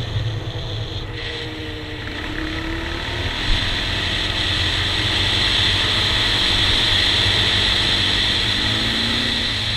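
Honda TRX400EX quad's single-cylinder four-stroke engine running under way, with wind rush on a helmet-mounted camera and tyre rumble on gravel. The engine pitch dips and rises with the throttle, climbing again near the end.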